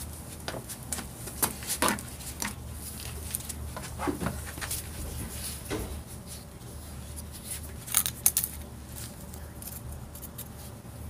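Scattered knocks and clicks of hand tools and a leather belt strap being handled and set down on a concrete floor, with a quick run of sharp clicks about eight seconds in. The cordless drill is not running.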